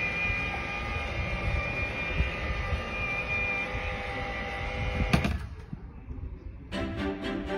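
Klein Vision AirCar's wing-folding mechanism running with a steady whine of several held tones over a low rumble. It stops with a knock about five seconds in, and music starts near the end.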